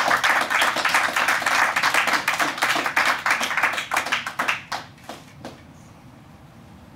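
Small crowd of guests applauding: dense clapping that thins out to a few last claps and stops about five seconds in.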